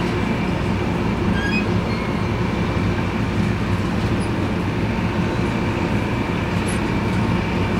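Steady rumble and hum of a train, with constant low droning tones and no change in level.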